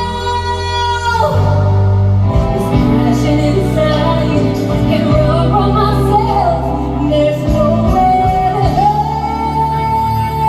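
Background music with singing: a long held sung note ends about a second in, then the vocal melody moves on over a deep, steady bass line.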